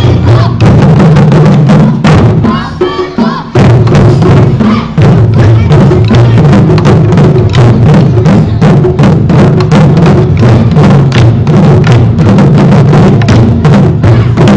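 A drum ensemble of large barrel drums beaten with sticks, playing a loud, fast, dense rhythm. The drumming thins out briefly about two seconds in, then comes back at full strength.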